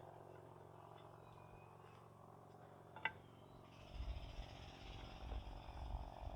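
A single sharp click about halfway through, then gusty wind rumbling on the microphone from about four seconds in, with a steady faint hiss above it.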